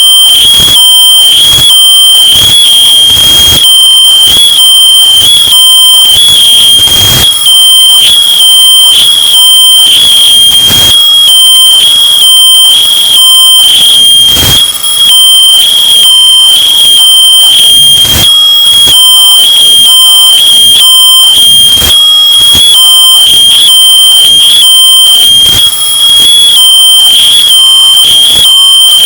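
Smoke detector alarm sounding a piercing high-pitched tone in evenly repeating pulses, bass-boosted and amplified to the point of heavy distortion and clipping.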